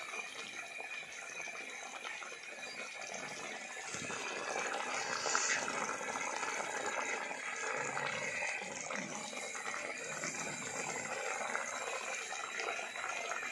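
Chicken masala sizzling in a cooking pot as the gravy cooks in: a steady watery hiss that grows a little louder about four seconds in.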